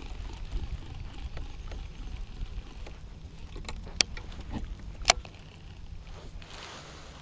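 Baitcasting reel, rod and lure being handled: a few sharp clicks, the two loudest about four and five seconds in, over a low steady rumble of water and wind on the microphone.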